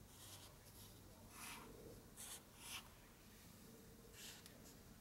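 Faint scratchy strokes of a blade cutting through a truck's cloth headliner, about six short cuts, the loudest a little past halfway.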